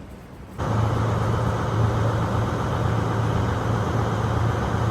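An engine running steadily with a constant low hum, most likely the train's engine. It cuts in sharply about half a second in and stops abruptly at the end.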